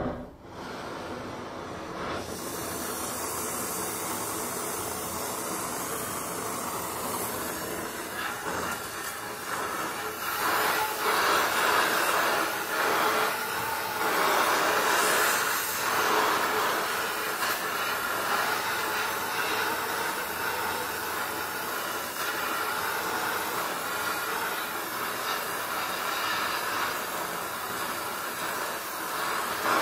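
Gas welding torch flame burning with a steady hiss as it works on a steel pipe, starting suddenly and growing louder for a while in the middle.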